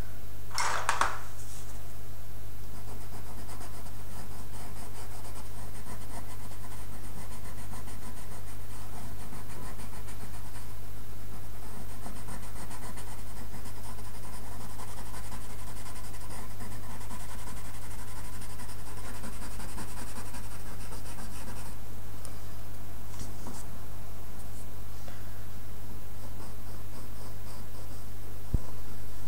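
Coloured pencil scratching on drawing paper in runs of quick, short shading strokes, over a steady low electrical hum.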